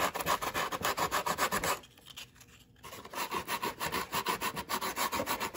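Sandpaper rubbed by hand over the foam of a model jet's fuselage in quick back-and-forth strokes, several a second, taking down the high spots so a fuel tank will fit. The strokes pause for about a second near the middle, then carry on.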